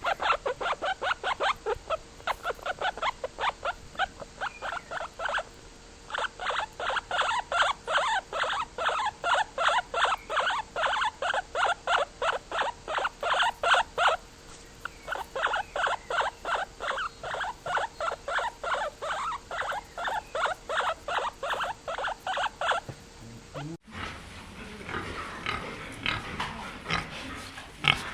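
An animal calling over and over in quick, even runs of about three calls a second, with two short breaks. Near the end it cuts to a different, noisier animal sound.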